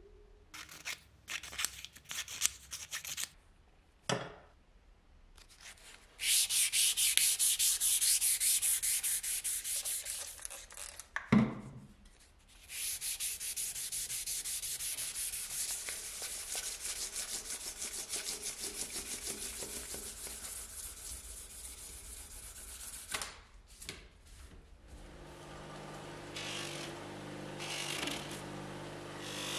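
Hand sanding: an abrasive rubbed back and forth in fast, even strokes, in two long runs with a sharp knock between them, after a few short scrapes. Near the end a small electric motor starts humming steadily.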